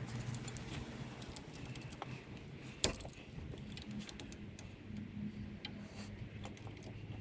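Light metallic clicks and clinks of hand tools on a brake caliper, with one sharper knock about three seconds in, over a low steady hum.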